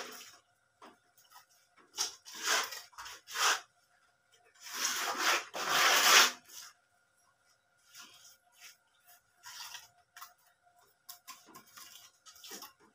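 Masonry scraping and rubbing: mortar and concrete hollow blocks being worked by hand on top of a block wall, in a few short rasping strokes and then a longer, louder scrape about five seconds in.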